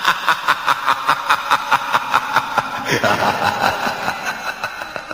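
A phone ringtone of rapid, rhythmic laughter-like chuckling, about five pulses a second, fading away near the end.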